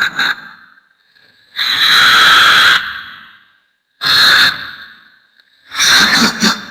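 Muppet monster's high-pitched maniacal laughter in three outbursts: a long held cry of over a second, then a short one, then a quick pulsing laugh near the end.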